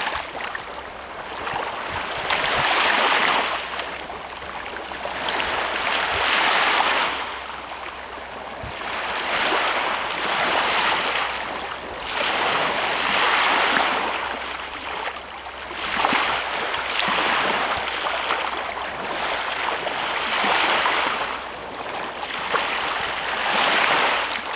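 Small waves breaking and washing up a sandy beach, each wash swelling and fading in turn, about one every three to four seconds.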